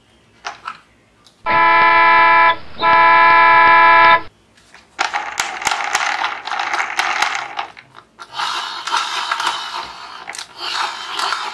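Two blasts of a bus horn, a steady single-pitched tone, the second blast longer. After them comes a run of light plastic clattering and scraping as the toy bus is handled over a tub of plastic toys.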